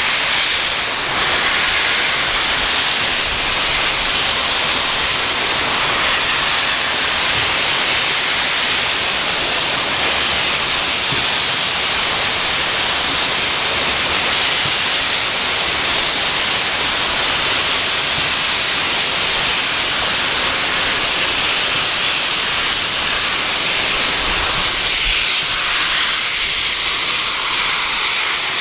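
Steam locomotive No. 6990, a GWR Modified Hall 4-6-0, venting steam in a loud, steady hiss.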